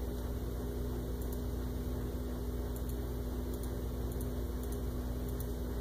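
Steady low mechanical hum of room background noise with one constant tone in it, and a few faint, light clicks.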